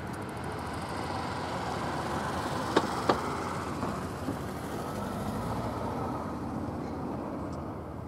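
Steady low rumble and hiss, with two sharp knocks close together about three seconds in.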